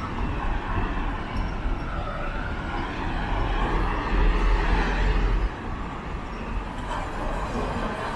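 Low rumble of motor traffic, swelling from about three seconds in and dropping off sharply about five and a half seconds in.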